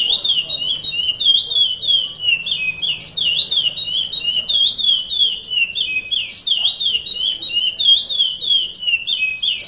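Curió (chestnut-bellied seed finch) singing the Paracambi 'rompe nuvem' song: an unbroken run of quick, clear whistled notes sliding up and down, the phrase repeating without pause.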